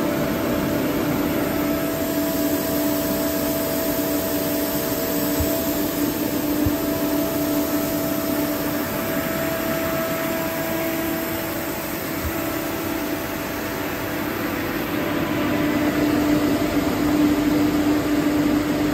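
Fini Plus 20 15 kW rotary screw air compressor running steadily under its newly fitted control unit: a constant droning hum, easing slightly past the middle and picking up again near the end.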